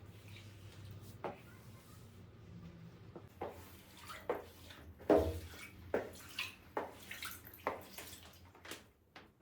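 Water running from a tap in a small room, followed by a quick series of knocks and clatters as things are handled, the loudest about halfway through.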